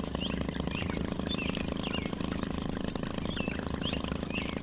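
Small DC motor water pump running with a steady buzz, its water streams pouring onto mud. A bird chirps repeatedly, about twice a second, over the top.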